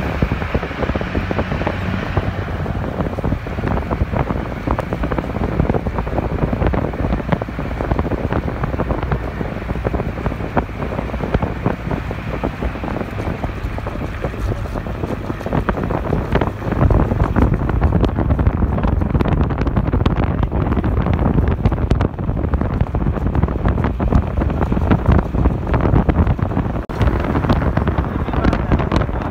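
Wind rushing and buffeting the microphone over the steady rumble of a car driving at speed on a highway, growing louder about halfway through.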